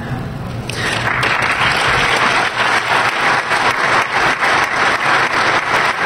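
Audience applauding, a dense patter of many hands clapping that swells in about a second in and holds steady.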